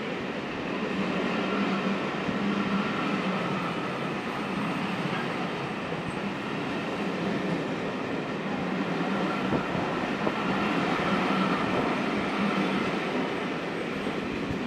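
Pullman coaches of the Orient Express rolling past at close range: a steady, continuous noise of wheels on rail.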